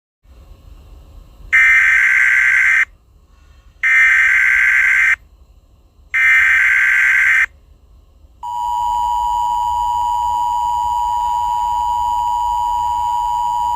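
Emergency Alert System header: three bursts of SAME data tones, each a little over a second long, followed about eight seconds in by the steady two-tone EAS attention signal.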